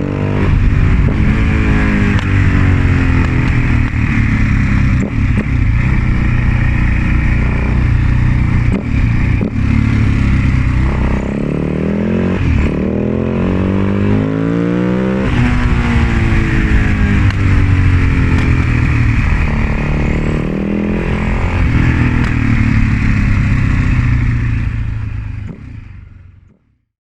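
2004 Husaberg FS 650's single-cylinder four-stroke engine running, its pitch rising and falling again and again as it is revved and eased off. It fades out near the end.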